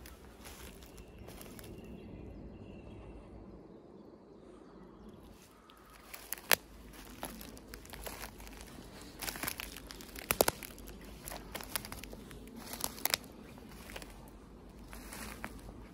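Footsteps through dry brush and leaf litter, with twigs and dead branches crackling and snapping underfoot; the sharpest snaps come in the second half.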